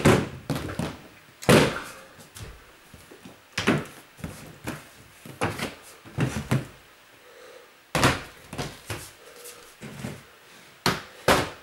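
Storage boxes being shifted and set down: about ten irregular thumps and knocks, the loudest about a second and a half in.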